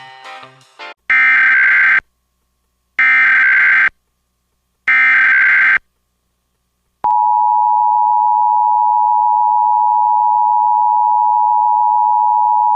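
Emergency Alert System tones. Three short bursts of SAME header data, each about a second long and about a second apart, are followed by a gap. About seven seconds in, the steady two-tone EAS attention signal begins and holds.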